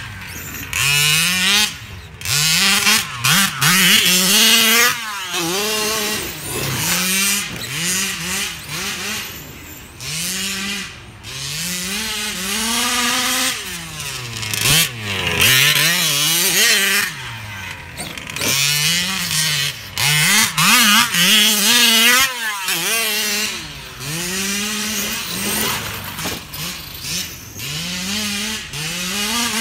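Large-scale radio-controlled off-road cars driving on grass, their motors revving up and falling back again and again as they accelerate and slow, with rough tyre and ground noise underneath.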